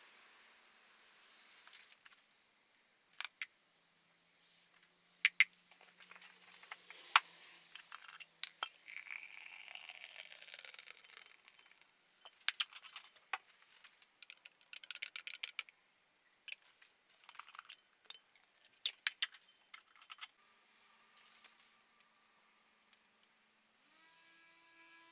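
Scattered sharp clicks and clinks of small hard objects being handled. About four seconds from the end a steady hum starts, and it steps up in pitch near the end.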